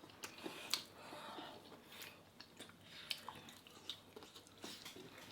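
Faint chewing and mouth sounds of people eating takoyaki, with scattered small irregular clicks.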